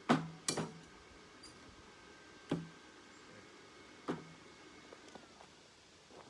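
Four irregular knocks of metal on metal: two close together at the start, one about two and a half seconds in, one about four seconds in. A faint metallic ringing lingers between them.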